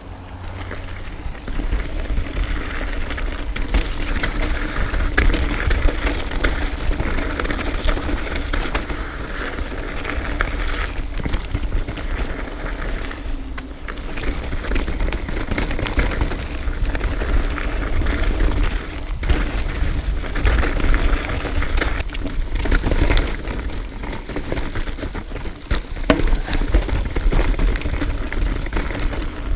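Trek Remedy full-suspension mountain bike riding down a dirt trail: tyres rolling over the rough surface, with frequent knocks and rattles from bumps and wind rumbling on the microphone.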